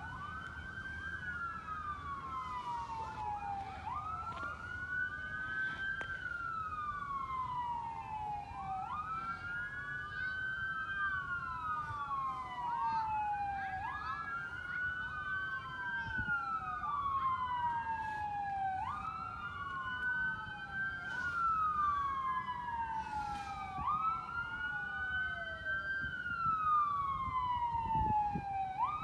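Fire truck sirens wailing, two or more sounding out of step with each other. Each rises quickly and then falls slowly, repeating about every four to five seconds.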